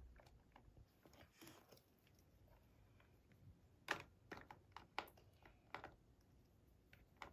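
Faint, scattered light clicks and taps of small plastic dolls knocking against a plastic toy school bus as they are put into its seats, a handful of them mostly in the second half.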